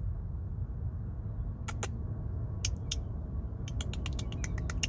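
Wind rumbling on the microphone, with a scatter of short sharp clicks: a few at first, then a quick run of them in the last second or so.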